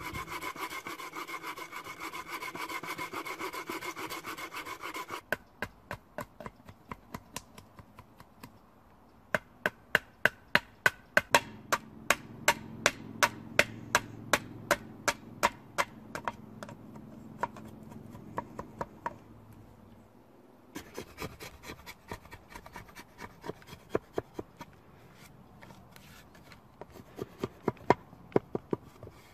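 A folding pruning saw cuts into a green wooden stick for about five seconds. A run of sharp wooden knocks follows, about two a second, as a knife is worked into the cut. Near the end comes scraping and clicking as the knife carves out a notch in the crossbow stock.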